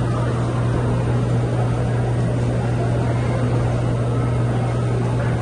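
Steady low machine hum with an even rushing noise over it, from the running equipment of a pizza shop's kitchen.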